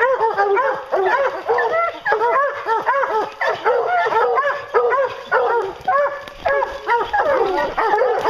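A pack of hunting hounds barking without a break, many dogs' barks overlapping. This is the treeing bark of bear hounds that have a black bear treed above them.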